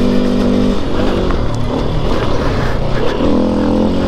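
Four-stroke KTM enduro motorcycle engine running at a steady held speed. About a second in, its note breaks up and wavers for about two seconds, then settles back to a steady note.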